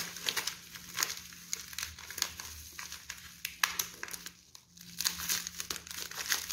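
Packaging crinkling and rustling in irregular crackles as a ring lamp and its parts are unpacked, with a short lull a little after halfway.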